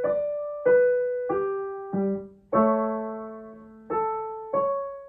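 Piano playing a warm-up arpeggio: single notes stepping down the broken chord, a chord struck and held at about two and a half seconds, then single notes climbing again, each note left to ring and fade.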